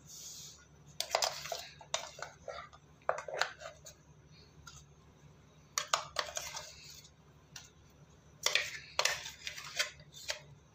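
Metal spoon scraping and clinking against a stainless steel mixer-grinder jar and steel bowl while scooping out ground dal paste. It comes in short clusters of clinks and taps every couple of seconds.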